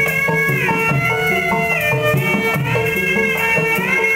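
Traditional Betawi music accompanying an ondel-ondel performance: a sliding melody over a steady, repeating drum rhythm.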